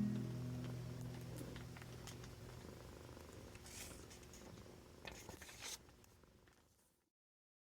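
Domestic cat purring close to the microphone, a low, steady pulsing that slowly fades out, with a couple of brief rustles near the end. The last notes of an acoustic guitar ring out at the start.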